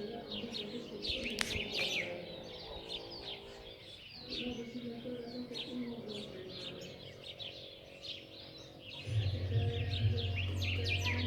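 A large flock of parrots calling together, many short overlapping chirps and squawks. A low droning sound comes in about nine seconds in.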